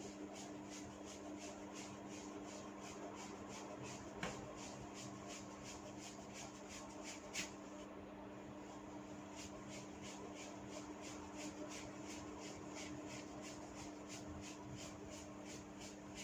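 Light, regular crackling snaps, about three a second, of tufts of hair being tugged at the roots in a head massage (hair cracking), with two louder snaps about four and seven seconds in. A steady low hum sits underneath.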